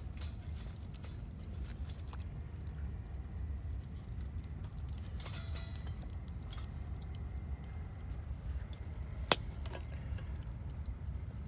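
Small wood fire crackling, with scattered light ticks and one sharp snap about nine seconds in, over a steady low rumble.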